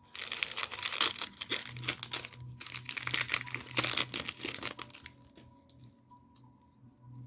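Foil wrapper of a Magic: The Gathering booster pack being torn open and crinkled, crackling for about five seconds and then dying away.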